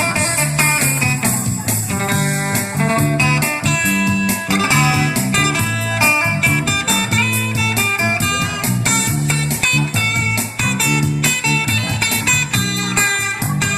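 Music with guitar over a bass line and a steady beat.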